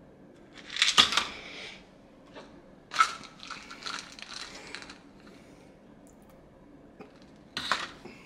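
Supplement tablets and their containers being handled, heard as three bursts of noisy clatter: the loudest about a second in, a longer one from about three to five seconds, and a short one near the end.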